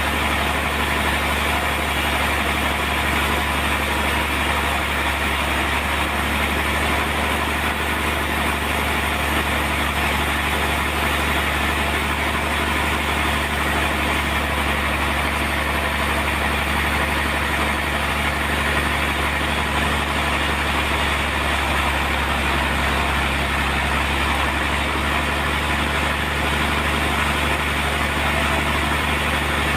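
Sawmill machinery running steadily: a constant low engine hum with an even, higher-pitched noise over it that doesn't change.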